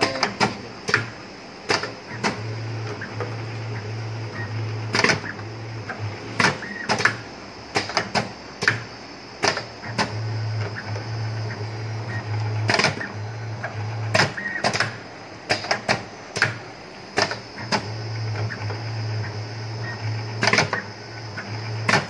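TR-508-25ZW computerised wire stripping and bending machine running through repeated automatic cycles, about three of them. A steady low motor hum lasts a few seconds each time, then clusters of sharp clacks follow as each piece of wire is cut, stripped and bent.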